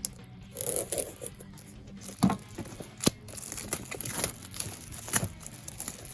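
Plastic shrink wrap being torn and crumpled off a boxed toy set: irregular crinkling with sharp crackles and snaps.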